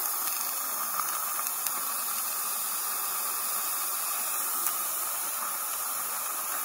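Steady hiss of dental suction running, with a few faint ticks.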